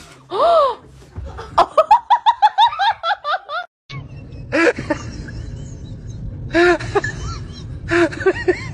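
A person laughing in quick high-pitched bursts, about five or six a second, which cut off suddenly midway. After a short gap, a few separate short laughs or cries come over a steady low hum.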